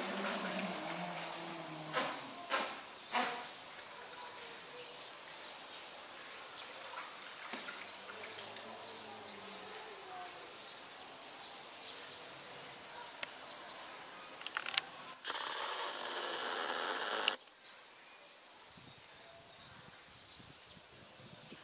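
Steady high-pitched shrill of summer insects, with a few sharp splashes of water a couple of seconds in from a brown bear splashing in a shallow pool, and a louder rush of noise for about two seconds past the middle.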